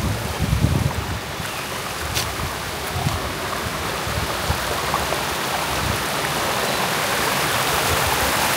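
Steady rushing noise, growing slightly louder, with a few brief low thumps in the first few seconds.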